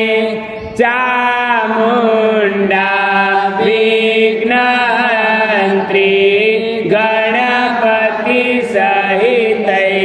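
A voice chanting a Sanskrit shloka to Bhairav in a slow melodic line of long held, gliding notes, with a short break for breath just under a second in.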